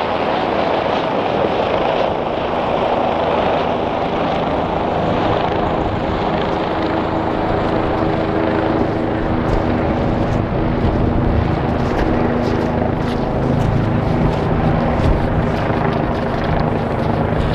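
Helicopter flying: a steady droning roar with a low hum running under it, growing heavier in the bass about thirteen seconds in.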